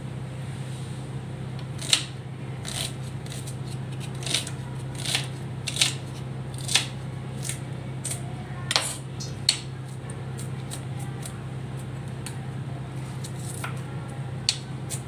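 Kitchen knife chopping a red onion, its blade knocking on the board in irregular sharp taps, most of them between about two and ten seconds in, over a steady low hum.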